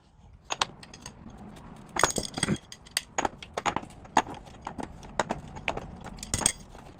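Irregular metal clinks and knocks of hand tools and hardware at a motorcycle's rear axle nut, as the nut, washer and spacer are worked off, with ringing metallic strikes about two seconds in and again near the end.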